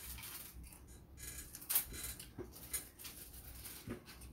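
Crunching of crispy deep-fried pork skin being chewed close to the microphone: a run of short, sharp crackles with one louder crunch about two seconds in.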